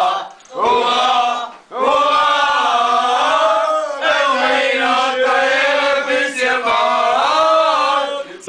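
A group of men chanting a carnival song together in long held phrases, with two short breaks in the first couple of seconds.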